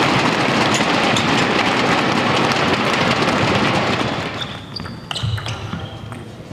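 Spectators in a hall clapping and cheering after a table tennis point, fading out about four seconds in. Near the end, a celluloid-plastic table tennis ball bounces a couple of times with sharp, ringing clicks.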